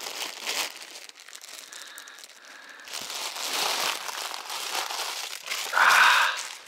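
Crinkling and rustling, as of a plastic bag being handled, with a louder, brief rustle about six seconds in.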